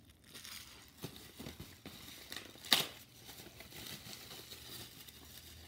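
Bubble wrap and plastic packaging crinkling and rustling as it is handled and pulled away, with scattered light crackles and one sharp click a little before the middle.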